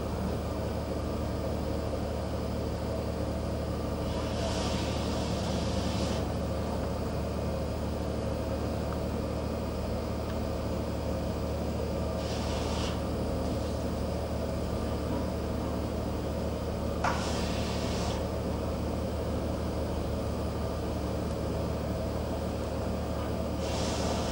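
Steady low drone of a ship's engine, with four short hissing rushes over it.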